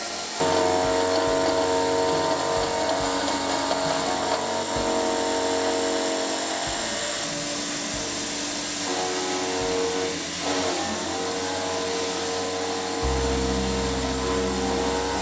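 Background music of sustained chords that change every second or two, with a deep bass coming in near the end, over a steady hiss.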